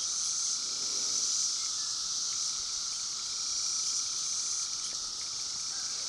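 Steady background chorus of periodical (17-year) cicadas, an unbroken drone.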